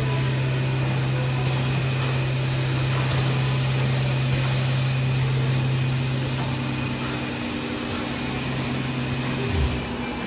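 Shrink-wrap packing machinery on a tissue maxi-roll production line running: a steady low motor hum over a fan-like hiss. Near the end the hum winds down, falling in pitch, and stops.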